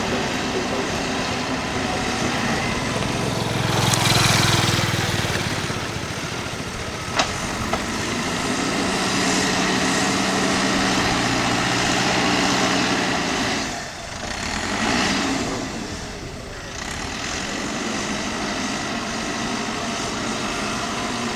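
Mahindra excavator's diesel engine running under working load, its pitch shifting as it works, with a louder noisy burst about four seconds in, a sharp knock a few seconds later and another swell near the end.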